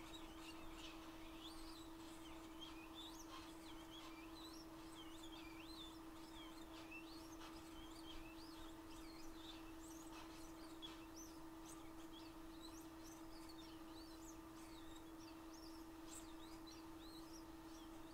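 Faint steady hum of a hot air rework station blowing while the front shield on an iPhone 7 logic board is heated off, with many short faint high chirps scattered over it.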